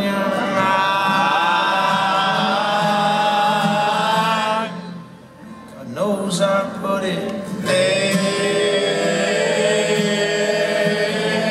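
Several male voices singing long held notes in close harmony, with a soft acoustic guitar underneath. The voices drop out for about a second midway, then come back in and hold the chord again.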